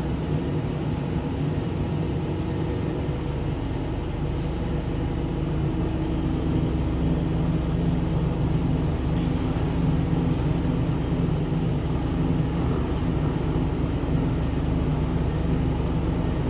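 GY4240 horizontal metal-cutting band saw running with a steady mechanical hum.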